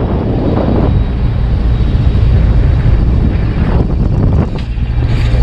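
Loud, steady wind rushing over the microphone on a ship's open deck under way, over a constant low machinery rumble.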